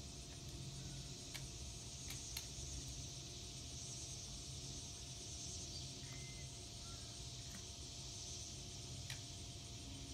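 Open-field ambience with no gunshot: a steady high insect drone over a low wind rumble, with a few faint clicks from the shotgun being handled.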